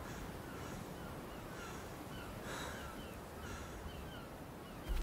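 Birds calling outdoors: many short high chirps, about two to three a second, and three harsh crow-like caws, the loudest about two and a half seconds in. A short low thump comes near the end.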